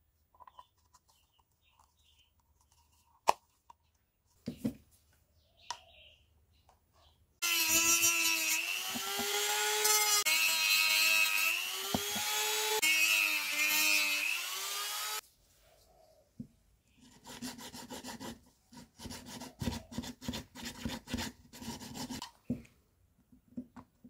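A small rotary tool with a cut-off disc runs and cuts into a grey PVC pipe end cap for about eight seconds, its whine dipping in pitch as the disc bites and rising again as it frees. After a short pause comes a run of rapid scraping strokes on the plastic, with a few light handling clicks at the start.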